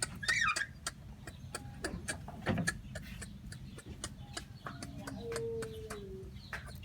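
Farmyard animal sounds: a short warbling call at the start and a long, slightly falling call near the end, over a steady run of sharp clicks and ticks.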